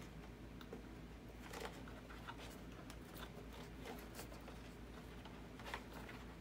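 Faint scattered clicks and rustles of hands handling wires and plastic connectors inside a foam model airplane's fuselage, over a low steady hum.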